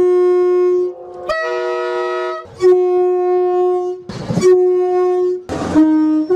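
A British train's two-tone air horn sounding a quick series of blasts, most on the same note. A different note comes about a second and a half in, and a lower note near the end, with short rushing noises between some blasts.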